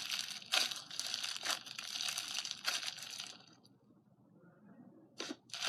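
Crunchy slime being squeezed and pressed, a dense crackling and crinkling with sharp pops. It cuts off about three and a half seconds in, with two brief clicks near the end.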